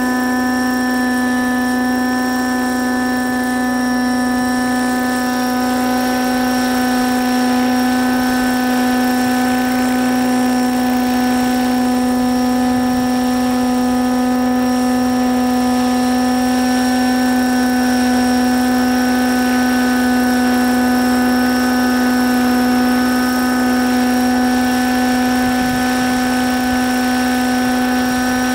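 Raptor 90 SE radio-controlled helicopter with an O.S. nitro engine, wearing an Agusta A109 scale body, hovering. The engine and rotors hold a steady, high-pitched whine at one constant pitch.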